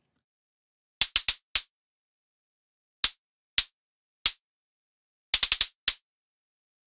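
The click component of a synthesized kick drum, with no low thump: short bursts of noise through a band-pass filter in FabFilter Volcano 3, each with the fastest attack and a snappy decay, like a beater slapping a drum head. Twelve quick ticks come in three groups: four, then three more spaced out, then five in a fast run near the end.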